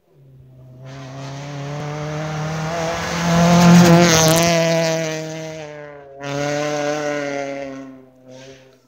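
Ford Focus rally car's engine running hard as it passes on a snow stage. It grows louder to a peak about four seconds in, drops out briefly just past six seconds, then pulls again and fades away.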